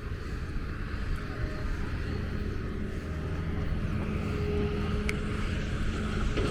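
A low, steady engine drone that grows slightly louder toward the end.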